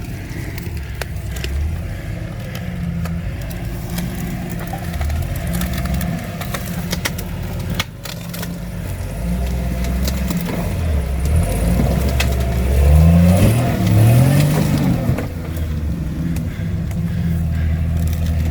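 Rock-crawling off-road vehicle's engine working at low speed over rocks, revving up twice near the end, with scattered knocks and scrapes.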